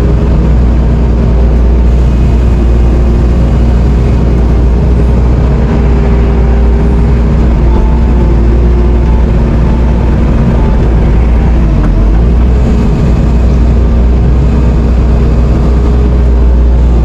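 Bobcat T770 compact track loader's diesel engine running loud and steady with an unchanging drone.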